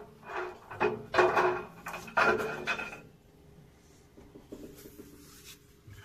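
Water tap being turned open by hand, giving about five short squeaky rubbing bursts in the first three seconds, then fading to faint sounds.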